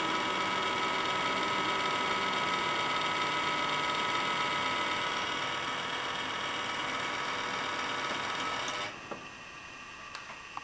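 Odd noise from a desktop PC starting up: a steady whine of several high tones over a hiss, which cuts off suddenly about nine seconds in, leaving a few faint clicks.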